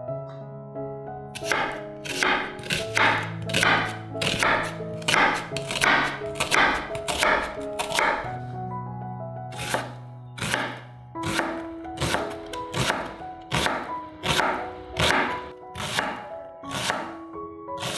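Chef's knife slicing a half onion on a bamboo cutting board: steady cuts with the blade striking the board about twice a second, starting about a second and a half in, with a short pause around eight seconds in, over background music.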